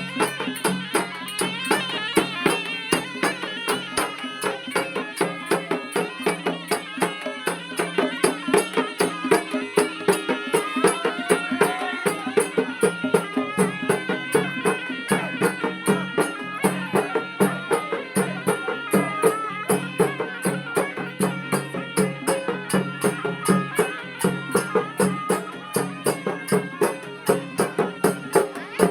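Traditional Indian devotional music for a temple puja: a fast, steady drumbeat over a held drone, with a wandering melody line above.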